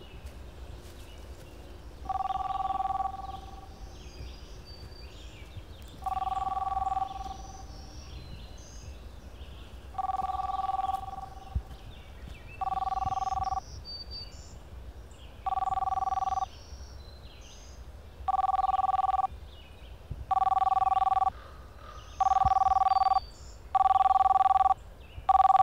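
Telephone ringing with an electronic two-tone ring about a second long. The rings come about every four seconds at first, then faster and louder, until they are almost back to back near the end.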